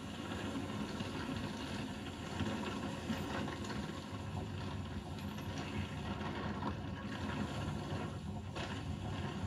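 Steady rushing rumble and rattle from GoPro footage of a mountain-bike ride, played through the TV's speakers.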